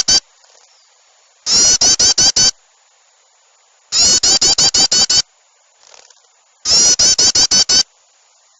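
Bird-lure recording of agitated songbird alarm chatter. Bursts of four to seven rapid, harsh, high notes, each burst about a second long, repeat every two to three seconds.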